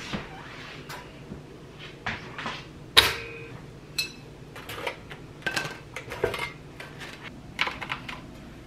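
Pop-up toaster releasing its toast with a sharp metallic clack about three seconds in, its timer having run out. Lighter clicks and knocks of dishes and food being handled on the counter come before and after it.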